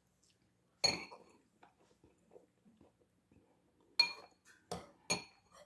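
A metal spoon clinking against a cereal bowl: one clink about a second in, then three quick clinks near the end, each with a short ring.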